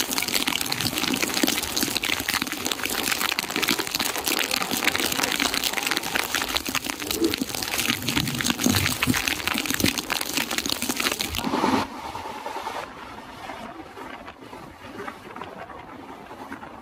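Heavy rain pouring down, heard from the open door of a moving passenger train. About twelve seconds in the sound cuts suddenly to the quieter, steady running of the train with wind.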